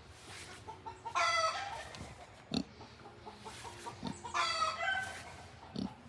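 Kunekune pig snoring in its sleep: a squeaky, whistling snore on the in-breath about a second in and again around four seconds in, each followed by a short snort on the out-breath.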